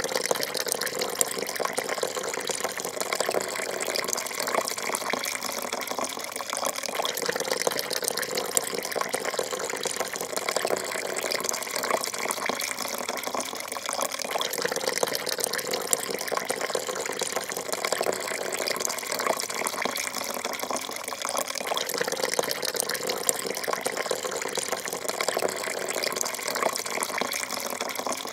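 A thin stream of coffee pouring steadily into a porcelain cup, making a continuous splashing trickle that swells slightly every few seconds.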